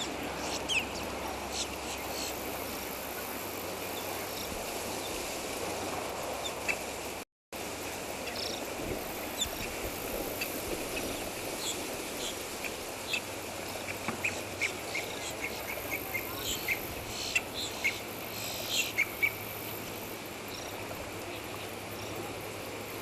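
Outdoor natural ambience: a steady low hiss with scattered short, high chirps, coming more often in the second half. The sound drops out completely for an instant about seven seconds in.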